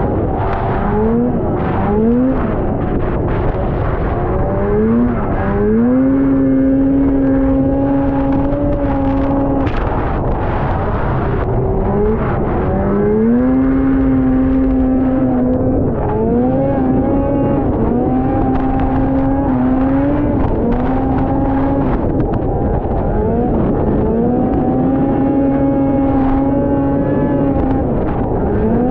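Two-stroke engine of a 1979 Ski-Doo Blizzard 7500 snowmobile running hard at speed. It repeatedly climbs in pitch to a high, held whine for a few seconds, then falls back briefly as the throttle eases, several times over.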